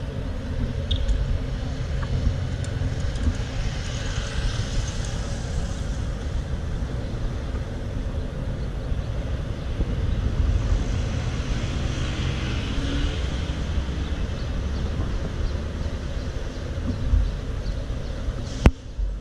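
City street ambience: a steady low rumble of road traffic with cars passing. There is a single sharp click near the end.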